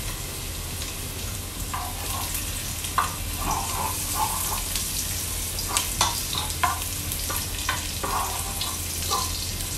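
Minced garlic sizzling in hot oil in a pot as it fries toward golden brown, with a steady hiss and repeated scrapes and taps of a plastic spoon stirring it against the pot.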